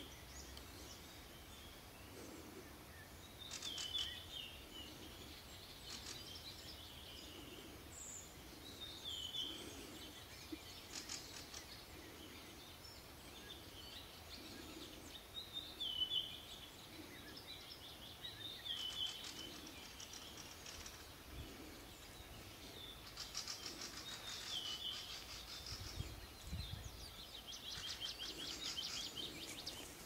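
Small songbirds singing: a short song phrase ending in a downward flick, repeated every couple of seconds, with buzzy trills joining in near the end.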